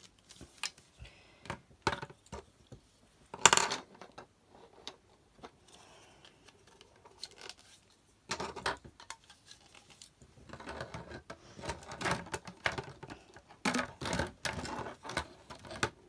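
Plastic pipes and fittings knocking and clicking as they are handled, set down on a table and pushed together, with one sharp knock about three and a half seconds in and a run of rattling knocks in the second half.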